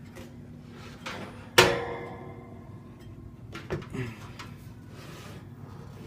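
A sharp knock with a short metallic ring, then a few lighter clunks about two seconds later: the steel cabinet of a box fan being handled and turned.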